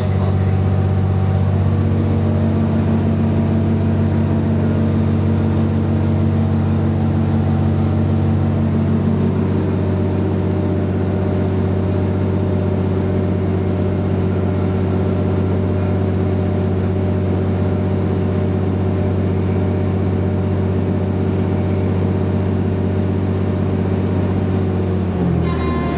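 Diesel engines of an Irish Rail 29000 class diesel multiple unit running steadily, heard from inside the passenger carriage. The engine note shifts about two seconds in and again about nine seconds in, then falls in pitch near the end.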